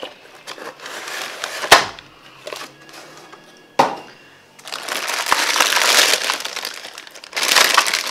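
Two sharp knocks in the first half, then a clear plastic bag crinkling and crackling as hands handle it from about halfway on, louder near the end.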